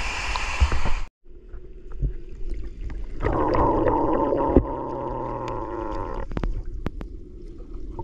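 Waterfall water rushing and gurgling. The hiss cuts off abruptly about a second in, then lower, rumbling water continues with a knock and a few sharp clicks near the end.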